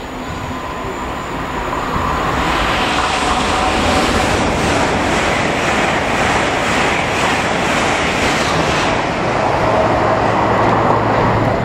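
LNER Azuma high-speed train running through the station without stopping. The rush of wheels on rail builds over the first couple of seconds and then holds loud as the carriages pass.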